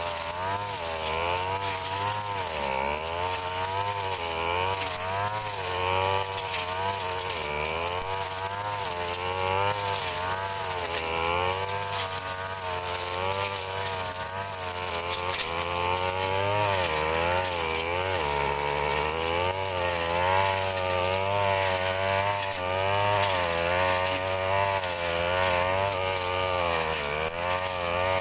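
Petrol brush cutter's small engine running at high revs, its pitch rising and falling continually as the blade is swung through grass and weeds.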